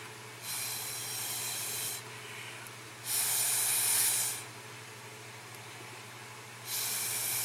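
Three hissing bursts of air blown through a thin straw nozzle, each about a second and a half long, pushing wet alcohol ink across the paper.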